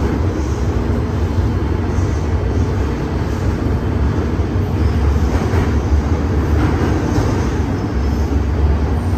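MTR M-Train electric multiple unit running on the Kwun Tong Line: a steady, loud rumble of wheels and traction equipment, with a faint steady tone above it.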